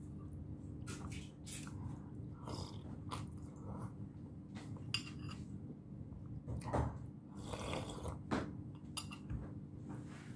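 Eating sounds: soft slurps of soup from a metal spoon and chewing, with scattered small clinks of the spoon against a glass bowl, over a low steady hum.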